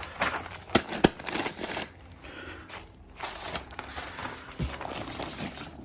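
Rustling and crinkling of packaging being handled, with a couple of sharp knocks about a second in.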